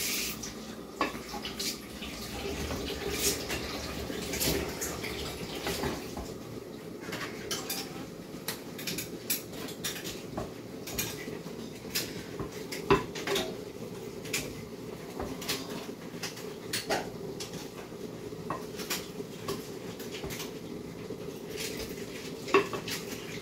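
Dishes and cutlery clinking in kitchen handling: many separate light clinks and taps at irregular intervals.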